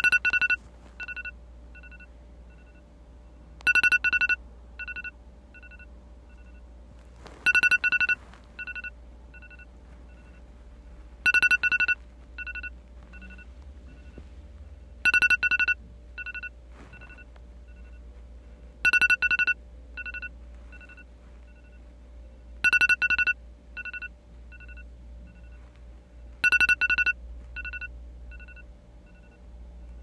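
iPhone alarm ringing: a loud two-tone beep followed by a string of shorter, fainter beeps that fade away, the pattern repeating about every four seconds.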